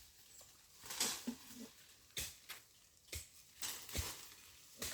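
A scattered series of light, sharp knocks and rustles, about eight in all at irregular gaps, from work being done in brush.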